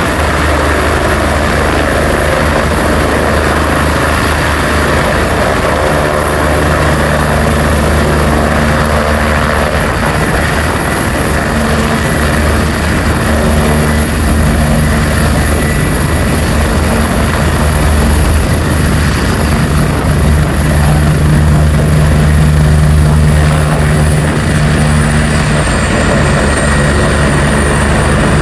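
Medical helicopter settling onto a helipad with its rotors turning: a steady low rotor beat under a high turbine whine, the whine dropping slightly in pitch near the end.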